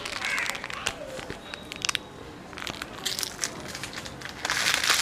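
A dog crunching and chewing food off the ground: a run of sharp crunches and clicks, densest and loudest near the end.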